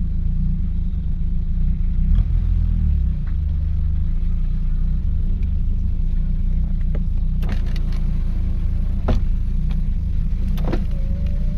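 Ford 4.0 L Intech SOHC turbo straight-six running steadily at low speed as the car creeps along after sitting for about a year, with a bit of a cough and splutter. A few sharp clicks about halfway through and near the end.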